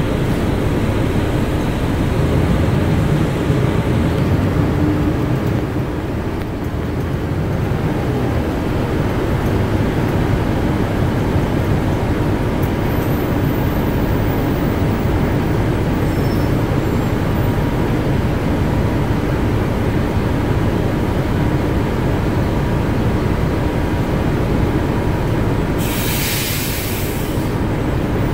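Interior ride noise of an empty RTS transit bus under way: a steady low rumble of engine and road. Near the end comes a short, loud hiss lasting about a second and a half.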